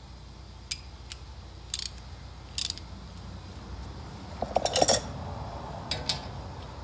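Ratchet wrench and socket clinking against metal suspension parts: a few sharp metallic clinks, then a quick run of clicks about four and a half seconds in, the loudest, and two more clinks near six seconds.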